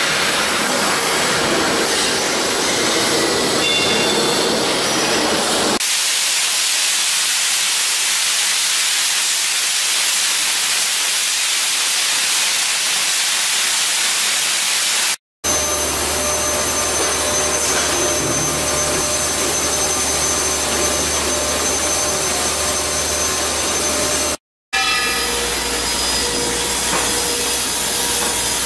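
A run of steel-shop sounds. A loaded cart rolls on its castors over concrete with high squeaks. About six seconds in, this cuts to the steady loud hiss of a hand-held abrasive blast hose cleaning steel beams. Later comes a steady machine hum, and near the end an automatic shot-blasting machine running.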